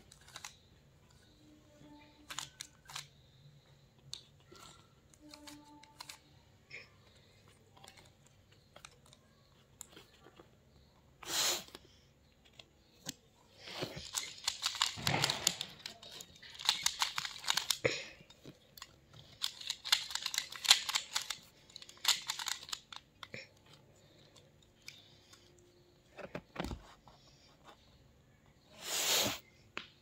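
Plastic twisty puzzles being turned by hand, first a 3x3 speed cube and then a Pyraminx: quick clattering clicks as the layers turn, thickening into dense flurries of turns partway through. Two brief louder swishes of handling stand out.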